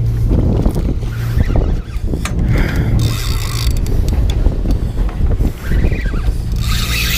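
A boat's engine hums steadily, with scattered sharp clicks and knocks as a spinning rod and reel are handled.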